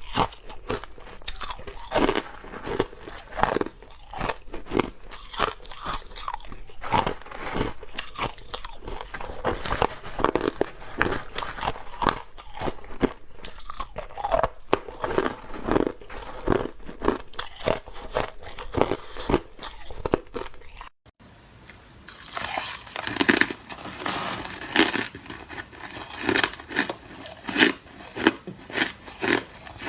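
Clear, hard crushed ice being bitten and chewed close to the microphone: a dense, irregular run of loud crunches. There is a short silent break about two-thirds of the way through, after which the crunching goes on.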